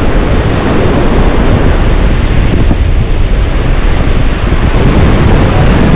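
Strong wind off the sea hitting the microphone, a loud steady rushing, with surf on the beach behind it.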